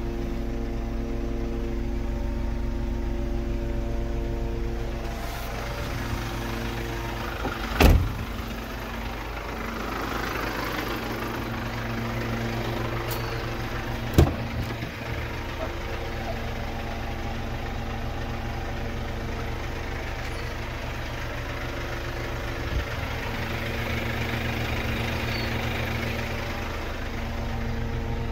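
Mercedes Sprinter 513's diesel engine running steadily. Two sharp knocks about eight and fourteen seconds in, and a soft hiss that swells and fades twice.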